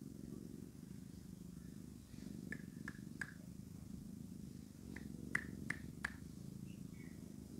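Domestic tabby cat purring, a steady low fluttering rumble. Over it come a few short sharp ticks: three a little before the middle and four more soon after it.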